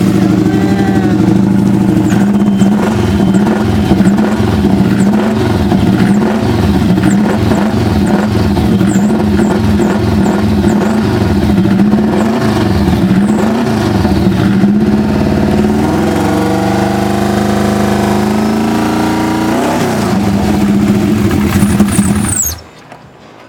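Freshly rebuilt Subaru EJ257 2.5-litre turbocharged flat-four on its first start-up, running loud, its engine speed rising and falling repeatedly, then steadier. It stops suddenly near the end; it sounds like a race car.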